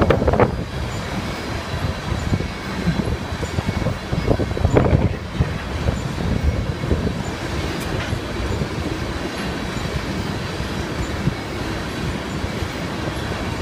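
A freight train's cars roll past: a steady rumble and clatter of steel wheels on the rails, with louder surges right at the start and again around five seconds in.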